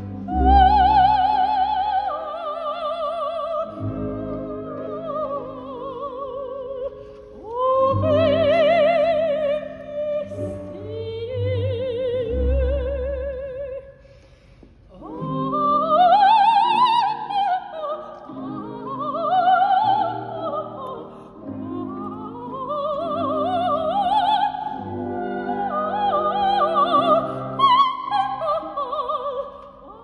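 Operatic soprano singing with wide vibrato over a full symphony orchestra, in long sustained phrases that rise and fall, with a brief lull about fourteen seconds in.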